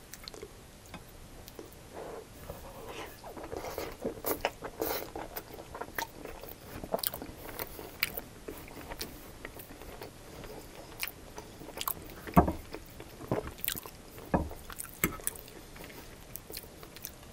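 Close-miked chewing and wet mouth clicks of a person eating chili-topped fries, with a metal fork scraping and knocking on a ceramic plate; two louder knocks come about 12 and 14 seconds in.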